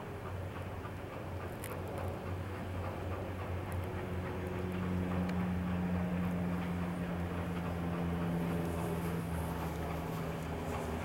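SP&S 700, a 4-8-4 steam locomotive, approaching under steam: a steady low droning hum over dense mechanical running noise, growing somewhat louder from about four seconds in.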